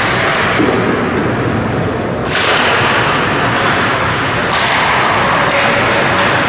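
Ice hockey play in an indoor rink: a steady hiss of skates on the ice that turns louder about two seconds in, with a few sharp knocks of sticks and puck.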